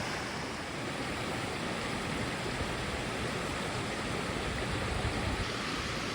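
Waterfall pouring into its plunge pool: a steady, even rush of falling water, with a brief low rumble swelling about five seconds in.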